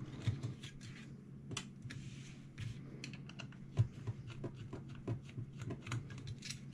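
Small screwdriver backing screws out of the metal shield on a 3.5-inch hard drive: a run of light, irregular metal clicks and scrapes, with one sharper click about four seconds in.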